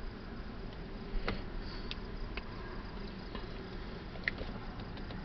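Faint insects chirping over a low steady hiss, with a few soft clicks.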